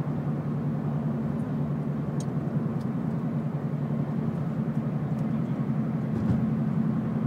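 Steady cabin drone of a Scion tC driving at an even speed, heard from inside the car: engine and road noise with no change in pitch.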